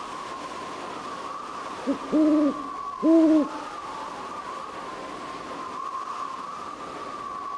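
Owl hooting: a short note, then two longer hoots about a second apart, beginning about two seconds in, over a steady high-pitched drone.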